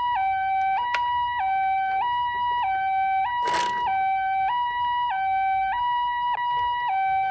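Japanese-style ambulance two-tone "pee-po" siren, alternating steadily between a high and a low tone, each held a little over half a second. A short hiss cuts in about halfway through.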